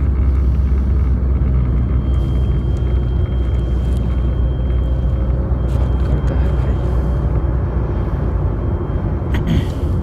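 Steady low rumble inside a moving car's cabin: road and engine noise while driving through a strong dust-storm wind. A brief sharp rustle near the end.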